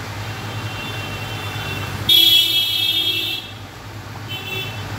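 Vehicle horns honking: a fainter honk over the first two seconds, a loud longer one about two seconds in lasting over a second, and a short faint one near the end, over a steady low hum.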